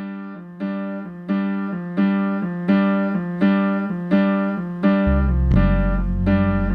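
A live band's song opening, with a keyboard striking the same chord over and over, about three times every two seconds. Low bass notes join about five seconds in.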